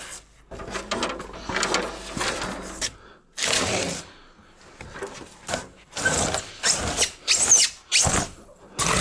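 A long laminated strand lumber (LSL) board is shoved and dragged along the top of a concrete foundation wall. It scrapes in irregular bursts with short pauses between pushes, and gives a brief squeak near the end.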